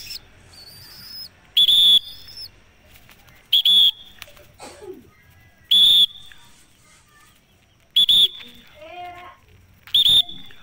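A person whistling: five short, loud, high whistles at a steady pitch, about two seconds apart, calling a circling pigeon to come down. Faint bird chirps can be heard between the whistles.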